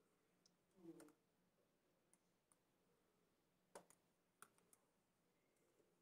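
Near silence with a few faint, scattered clicks from hands and teeth working small rubber hair elastics while tying little ponytails.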